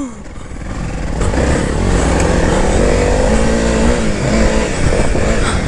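Honda CRF300L's single-cylinder four-stroke engine running as the dirt bike is ridden along a trail at low speed. The engine note drops briefly at the start, then builds and holds steady from about a second in.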